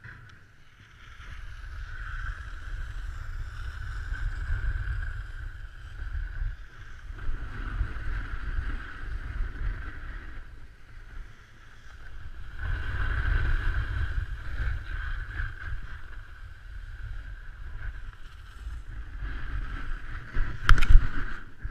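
Snowboard sliding and scraping over packed piste snow, the hiss rising and falling in long swells, with wind rumbling on the microphone. A sharp knock near the end.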